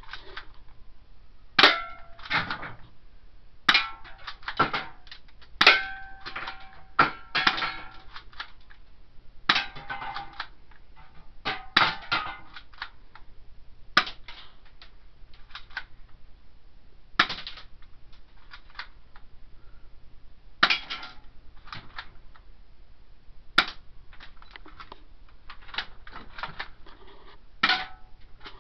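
BB gun firing shot after shot, each a sharp crack, with gaps of one to a few seconds between shots and sometimes two in quick succession. Several shots are followed by the short ringing clang of a BB striking an aluminium drink can.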